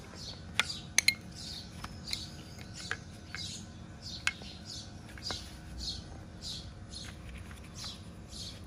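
Sharp clicks and knocks of plastic and metal pressure-washer parts being handled, loudest in the first second or so. Behind them a bird repeats a short falling chirp a little under two times a second.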